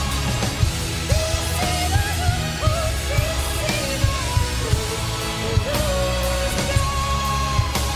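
Symphonic metal band playing live: a woman's voice sings a melody with long held notes over drums, bass and guitars.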